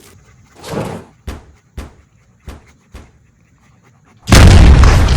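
A soft swell, then four sharp knocks spaced about half a second apart, then near the end a sudden loud, deep blast like an explosion that keeps rumbling.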